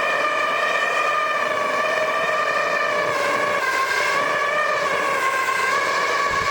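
A steady pitched howl with several overtones, wavering slightly in pitch, from air and flame being forced through a pipe into a clogged aluminium two-stroke silencer to burn out the oil and carbon inside.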